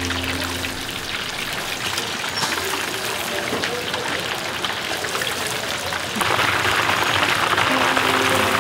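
Chicken deep-frying in a wok of hot oil: a steady crackling sizzle that becomes clearly louder about six seconds in.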